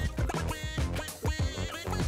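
Background music with a steady beat: regular drum hits under pitched instrument notes.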